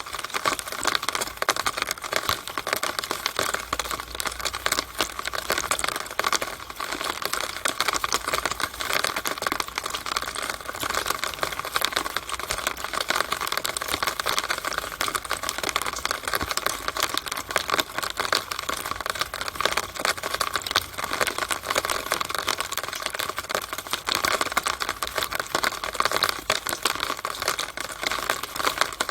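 Rainwater running down a downspout (rain gutter drainpipe) on a rainy day: a dense, steady tapping of drops and splashes with no let-up.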